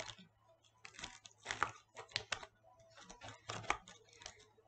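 Crinkling and tearing of a small blind-box toy package being worked open by hand, in short, irregular crackles and snaps.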